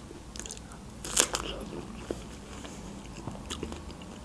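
Biting into a fresh strawberry dipped in cream, then chewing: a few short, wet clicks, the loudest about a second in.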